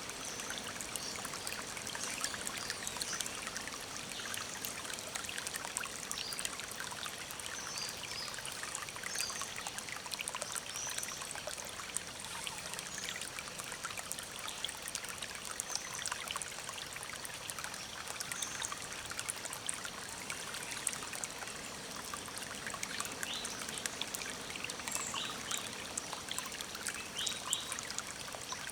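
Forest stream trickling and flowing steadily, with short high bird chirps scattered over it and a quick run of chirps near the end.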